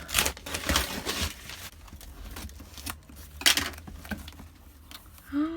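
Wrapping paper being ripped off a large gift box and crinkled, loudest in the first second or so, with another short rip about three and a half seconds in.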